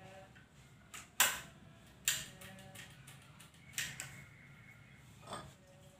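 Metal action of a tranquilizer dart rifle being worked by hand: about five sharp metallic clicks and clacks spread a second or so apart, several with a short ring after them.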